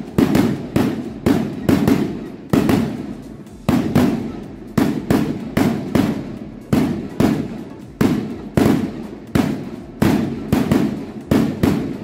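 Aerial firework shells bursting in a rapid barrage: loud bangs about two a second, each trailing off in an echo before the next.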